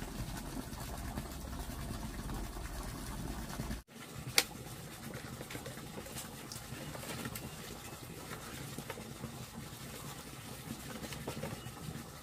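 Dry firewood sticks knocking and clattering against each other and the hearth bricks as they are handled and laid in a wood-fire stove, with one sharp crack just after four seconds in and lighter scattered knocks after it. Before that, a steady low rumble.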